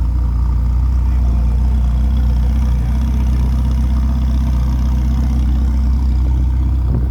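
Ferrari 488 Pista Piloti's twin-turbo V8 idling steadily, a deep even rumble with no revving.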